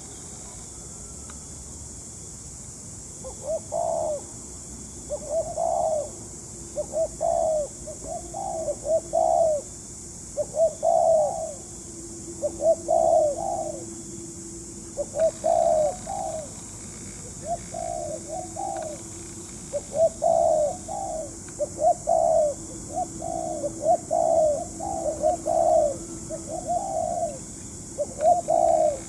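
Spotted dove cooing, starting about three seconds in and repeating its short coo phrases over and over, about one a second.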